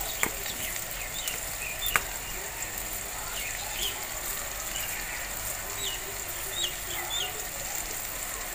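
Small birds chirping in short, high calls scattered throughout, over a steady hiss, with two sharp clicks in the first two seconds.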